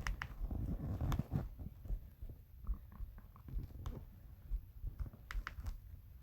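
Stomach growling: irregular low gurgles and rumbles, loudest in the first second and a half, with a few short higher gurgles and clicks later on.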